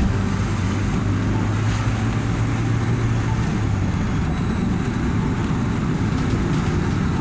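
A car driving on an asphalt road, heard from inside the cabin: a steady low rumble of engine and tyres.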